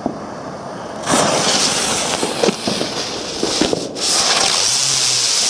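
Panda Feuerwerk 'Kreisel' spinner firework burning: a loud hiss of spraying sparks starts about a second in, with a few sharp crackles. It breaks off briefly just before the four-second mark and then goes on as a steadier, higher hiss.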